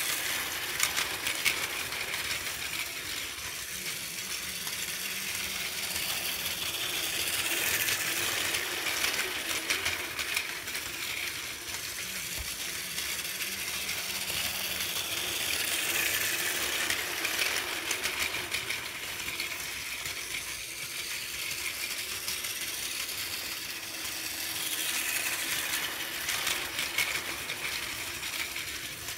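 Plarail toy Shinkansen train (400 series coupled with E4 series) running on plastic track: a whirring geared motor and fast clicking of the wheels over the track joints. It grows louder and fades again as the train comes round the loop past the camera, about every eight to nine seconds.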